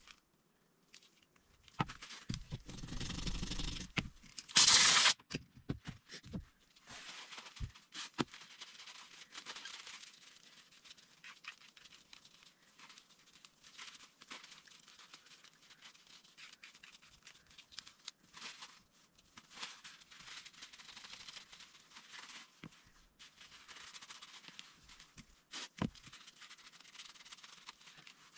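Paper towel rustling and rubbing as it wipes the dirt off the cylinder axis of an Astra .38 revolver, with small scrapes and clicks of metal parts. A brief, loud hiss about five seconds in.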